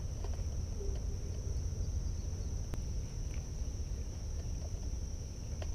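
Insects, crickets or the like, droning in one steady high-pitched tone, over a constant low rumble. A single faint click comes about halfway through.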